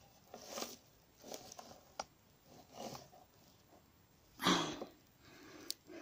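Dry straw mulch rustling in short bursts as it is pulled aside by hand, with a sharp click about two seconds in and a louder burst about four and a half seconds in.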